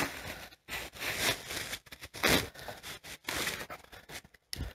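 Plastic and paper packaging rustling and crinkling in bursts as it is handled and pulled out of a cardboard box, with a sharp click at the start and a dull thump near the end.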